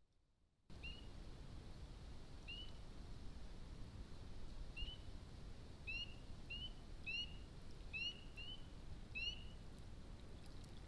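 A small animal calling: about ten short, high chirps, each sweeping upward in pitch, spaced irregularly and coming closer together in the second half, over a steady low hiss.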